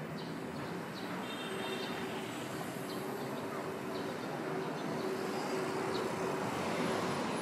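City street ambience: a steady wash of traffic noise with a low running hum, and faint short high chirps and voices over it.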